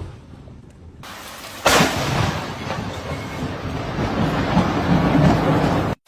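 A close lightning strike: a sudden sharp thunderclap about a second and a half in, followed by a long low rumble of thunder that cuts off abruptly near the end.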